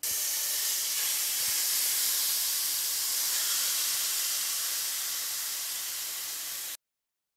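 Marinated chicken tikka pieces sizzling steadily as they are scraped into a hot nonstick frying pan. The sizzle cuts off suddenly near the end.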